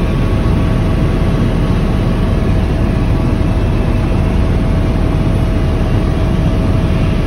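Helicopter in flight heard from inside the cabin: a loud steady engine-and-rotor drone with a thin steady whine above it.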